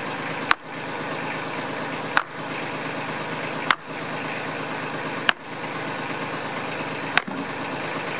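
Five light blows of a sledgehammer on a concrete slab, about one every one and a half seconds, over a steady background hum. The strikes test the bond between an inch-thick concrete topping and the slab beneath it.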